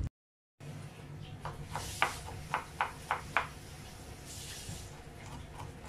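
Kitchen knife chopping garlic on a plastic cutting board: a quick run of about seven sharp knocks, then a short scraping hiss.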